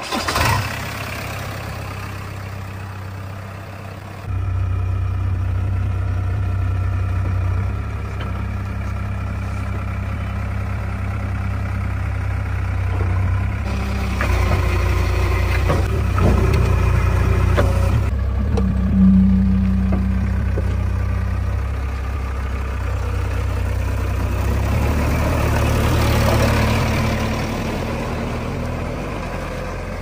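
Diesel engine of a JCB 3DX backhoe loader running steadily, getting louder about four seconds in, with a few short knocks around the middle.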